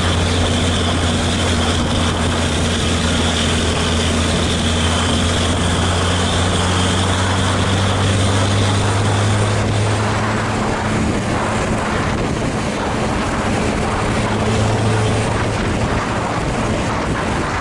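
Coach engine droning steadily while climbing a hill, heard from close behind, with a steady high whine that fades out about halfway. The engine note steps up a little in pitch about ten seconds in.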